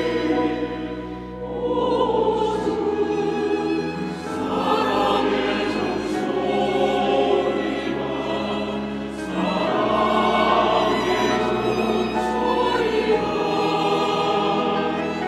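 Church choir singing an anthem in sustained, many-voiced phrases, with a few brief breaks between phrases.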